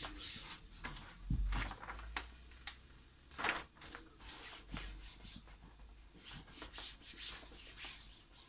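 A bare palm rubbing and sweeping carbon-fibre-pattern vinyl wrap film flat over a motorcycle side panel, pressing out air bubbles: repeated short swishing strokes of skin on the film. There is a soft thump about a second in and a louder rustle of the sheet about three and a half seconds in.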